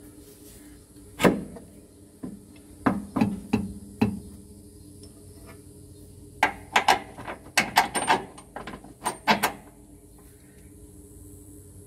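Metal knocks and clinks as a replacement RV rear shock absorber is handled up against its steel frame mount and its top eye is fitted onto the mounting bolt. There is one loud knock about a second in, a quick group of four a couple of seconds later, and a denser run of clinks in the second half.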